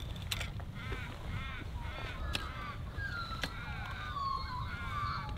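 A bird calling: a run of short, harsh caws, then a longer wavering call in the second half.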